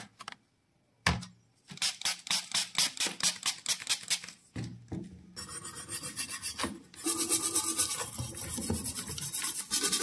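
A small stiff brush scrubbing the metal body of a vintage gas lighter, in back-and-forth strokes about three a second. The strokes come faster and louder about seven seconds in.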